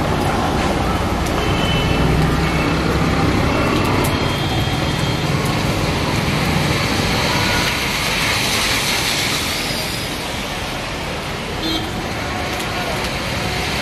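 Heavy rain falling on a city street, a dense steady hiss, mixed with traffic on the wet road; a low engine rumble is strongest in the first half.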